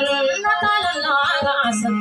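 A woman singing a Maranao dayunday song into a microphone, accompanying herself on acoustic guitar.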